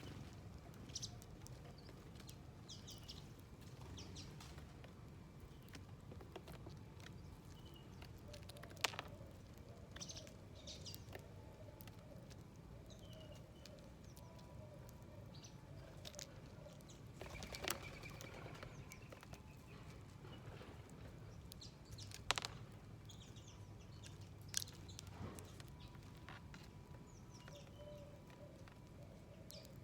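Small wild birds at a feeder chirping now and then in short, faint calls, with a few sharp knocks or wing flaps standing out about four times. A steady low hum runs underneath.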